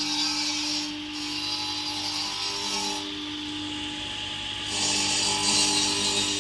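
CNC stone cutting machine working stone: a steady hissing, grinding cutting noise over a steady spindle tone. The noise thins out briefly about a second in and again for a second and a half in the middle.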